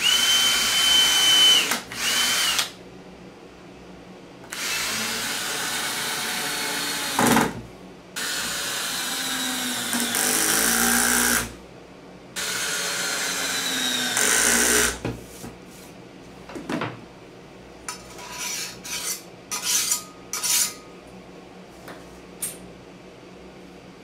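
Cordless drill drilling holes through a metal plate: the motor whines at speed under load in several runs of one to four seconds with short pauses between them, followed by a series of brief trigger bursts in the second half.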